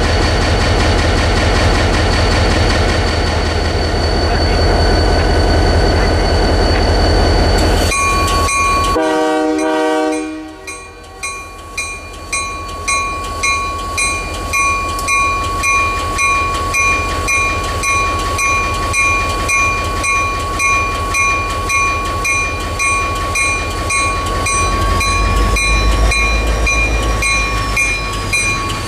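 Diesel passenger locomotive running steadily at a standstill, then one short horn blast about nine seconds in. After that a bell rings steadily, about three strikes every two seconds, until the end, with the engine low underneath and picking up again near the end.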